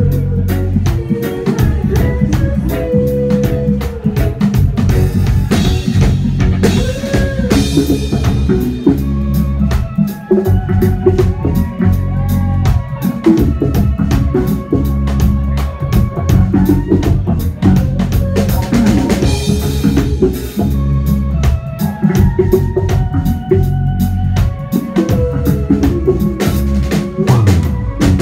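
Live reggae band playing, the drum kit prominent with snare rimshots and bass drum over a heavy bass line, and a woman singing into a microphone.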